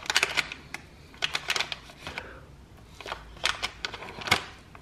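Knife sawing through a soft, wet flour-tortilla burrito on a paper wrapper, with the paper crinkling: a few bursts of short scratchy clicks with pauses between.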